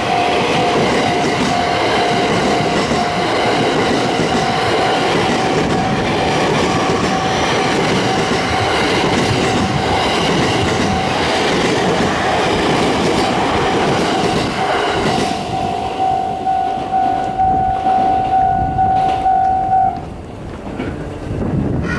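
A JR passenger train running past over a level crossing, with wheels clattering over the rail joints as the last cars go by. The crossing's warning bell rings a steady, pulsing tone over it and cuts off about 20 seconds in, once the train has cleared.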